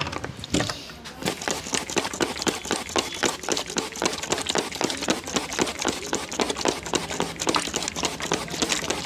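Hands striking the body in a fast, even train of percussive massage strokes, about eight slaps a second.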